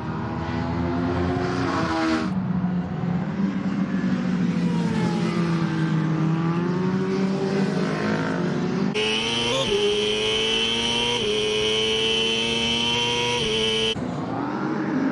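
Endurance superbike engines at racing speed, revving up and down as the bikes accelerate and brake through the gears, in several cut-together shots. From about nine to fourteen seconds in, a steady high-pitched whine sits over a steadier engine note.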